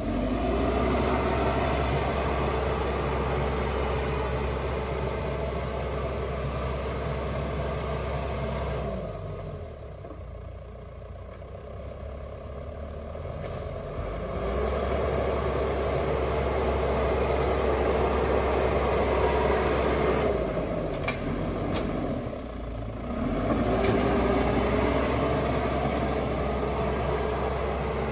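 Diesel engine of a heavy construction machine running steadily, twice dropping in revs and climbing back up.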